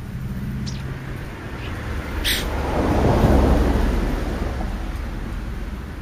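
A vehicle passing by, its noise swelling to a peak about three seconds in and then fading, over a low steady hum. Brief high chirps and a short sharp click come before the peak.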